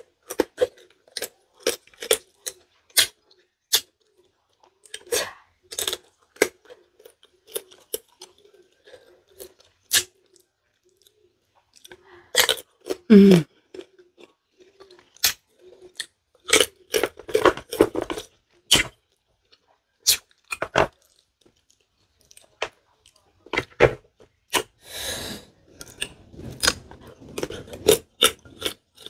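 Close-up crunching and chewing of young green tamarind pods dipped in plara sauce, in irregular bites with wet mouth clicks. A short vocal sound falling in pitch comes about halfway through, and a breathy hiss comes a little past three-quarters through.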